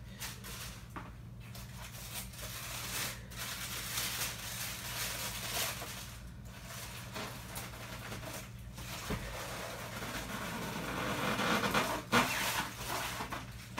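Rustling and handling noises as a heavy collectible statue and its packaging are moved about, busier near the end with a sharp knock about twelve seconds in, over a steady low electrical hum.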